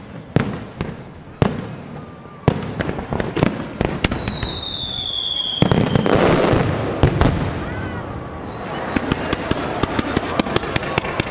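Large aerial fireworks display by Pirotecnia Hermanos Ferrández: a few single loud bangs about a second apart, then a whistling shell falling in pitch, a dense barrage of explosions about halfway through, and a fast rattle of many small reports near the end.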